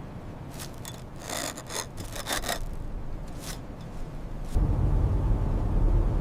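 A run of short, rough scraping sounds, then a loud low rumble that starts suddenly about four and a half seconds in.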